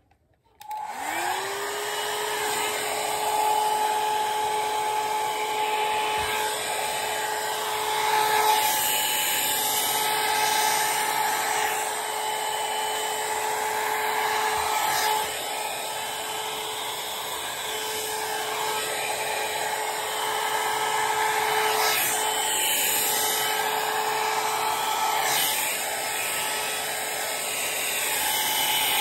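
A handheld hair dryer, used to style long hair, switches on about half a second in. Its motor whine rises quickly to a steady pitch, and it keeps running with a steady rush of air.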